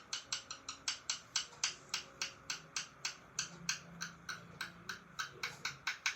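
A rapid, even run of sharp clicks, about four a second, throughout.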